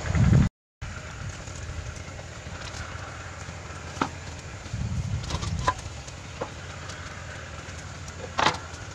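Hands handling vegetables and a metal tray on a wooden bench: a few light clicks, then a sharper knock about eight seconds in as the tray is moved, over a steady low background rumble.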